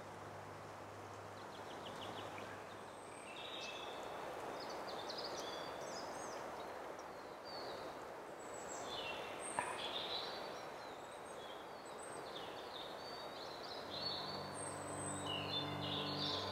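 Wild songbirds singing and chirping over a steady rushing forest background, with one sharp click about ten seconds in. Soft background music with low sustained tones fades out in the first few seconds and comes back in near the end.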